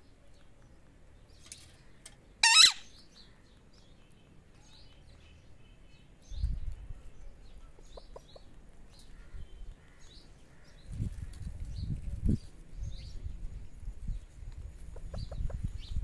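A caged parakeet gives one loud, harsh squawk about two and a half seconds in, with faint short bird chirps around it. Low rumbling noise comes and goes on the microphone, heaviest in the second half.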